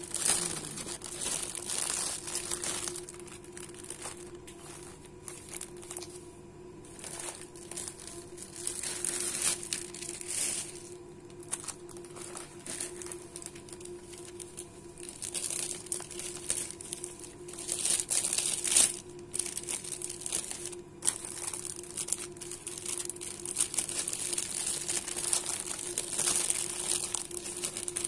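Clear plastic bags crinkling and rustling in irregular bursts as sandwiches and small soy milk cartons are handled and packed into them, over a faint steady hum.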